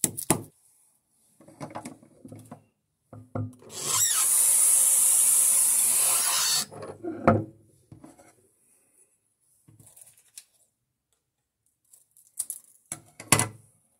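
Bathroom faucet running water into a glass bottle for about three seconds, then turned off. Short knocks and clinks of the glass bottle being handled and set down come before and after.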